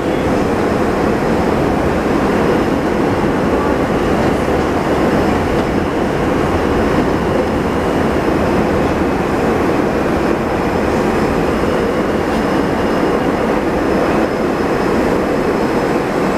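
An R160 subway car running along the track, heard from inside the car: a loud, steady rumble and rattle of wheels on rails, with a faint high whine.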